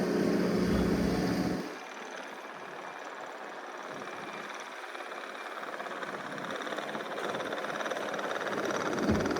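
Diesel engine of a Case TR310B compact track loader running, loud with a steady hum for the first second and a half, then dropping suddenly to a quieter steady run that slowly grows louder. A single knock near the end.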